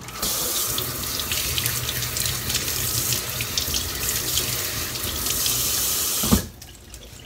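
Kitchen tap running into a stainless steel sink while a bunch of shungiku greens is rinsed under the stream by hand. The water is shut off with a short knock about six seconds in.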